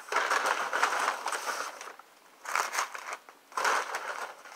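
Brown paper takeout bag rustling and crinkling as a hand rummages inside it, in one long burst and then two short ones.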